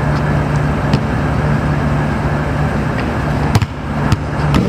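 Steady low hum and rumble, like engine or traffic noise, with three sharp knocks about half a second apart near the end.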